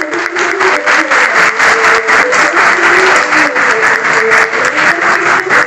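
A hall full of monks clapping in steady, dense applause, with music carrying on faintly underneath.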